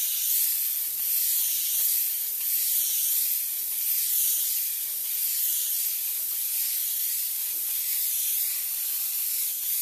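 Airbrush spraying fully open, a steady hiss of air and atomised transparent base as the shirt's fabric is saturated to flatten its nap before heat pressing. The hiss wavers gently about once a second.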